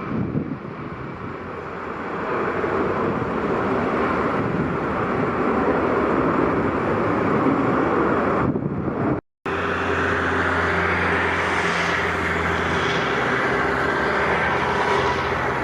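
Airliner engines running loud, mixed with wind rushing on the microphone and building over the first eight seconds. After a split-second dropout about nine seconds in, a steadier engine sound with a low hum and a held mid-pitched tone.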